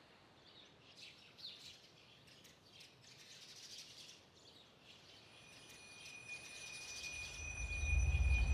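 Faint bird chirping, scattered high chirps over a soft hiss. About five seconds in a steady high tone joins, and near the end a low rumbling drone swells up, as in an ambient soundscape.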